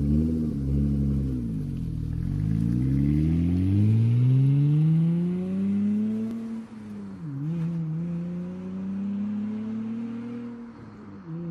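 Seventh-generation Honda Accord's 3.0-litre V6, running without its Tsudo exhaust fitted, accelerating away through the gears with an aggressive note. The engine pitch climbs steadily, drops briefly at a gear shift about seven seconds in, climbs again and drops at another shift near the end, fading as the car pulls away.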